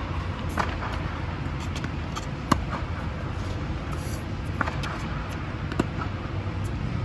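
Tennis rally on an indoor hard court: sharp pops of the ball off racket strings and court, about one every one to two seconds, the loudest about two and a half seconds in. Under them runs a steady low hum from the air-supported dome's fans.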